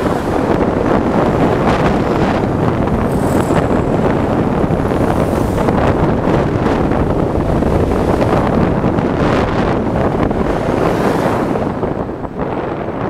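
Steady, loud wind rushing over the microphone of a rider on a moving electric scooter, with a brief dip near the end.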